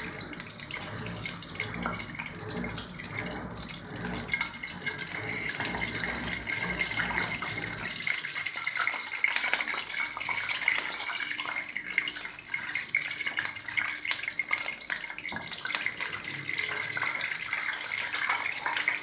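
Whole spices (green and black cardamom, black peppercorns, cloves and cinnamon) sizzling and crackling in hot oil in a steel karahi, stirred with a wooden spatula.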